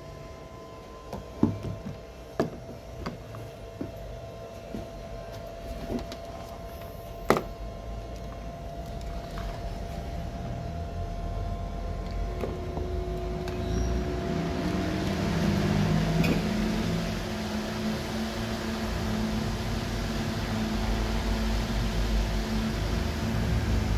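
Several sharp clicks and knocks of plugs and cords being handled and pushed into a power strip, then a 50 W electric fan switched on through a solar generator's inverter, its motor hum and the rush of moving air building steadily over the second half.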